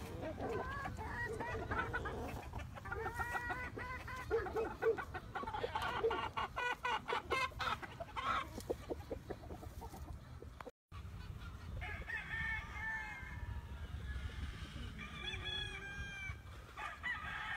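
Chickens clucking and roosters crowing, with many birds calling over one another. The sound drops out for an instant about two-thirds of the way through.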